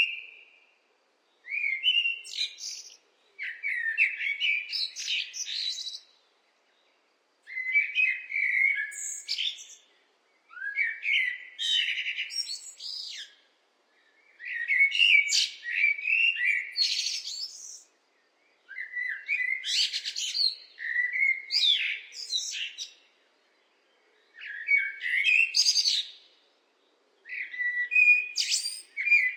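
Blackbird singing: a string of about eight warbling song phrases, each a few seconds long, separated by short pauses.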